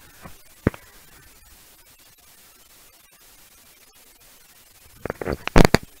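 Quiet background hiss with a sharp click just under a second in, then a cluster of short clicks and mouth noises about five seconds in.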